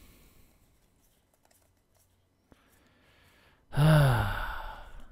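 A man's long disappointed sigh, sounded aloud, its pitch sliding down, starting near four seconds in after a quiet stretch.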